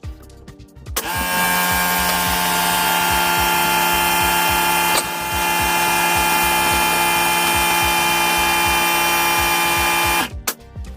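Power tool motor running at a steady pitch for about nine seconds, with a brief break about halfway through, over background music.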